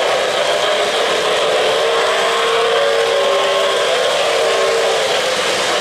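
O-gauge three-rail model trains running: a steady rolling clatter of metal wheels on the track with electric motor whine. A steadier humming tone joins in about two seconds in.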